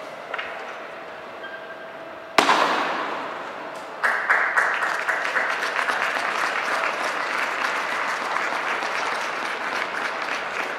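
A sudden loud crash about two seconds in that dies away quickly, then a crowd breaking into applause about four seconds in and clapping steadily, the reaction to a throw of a couillard, a medieval counterweight trebuchet.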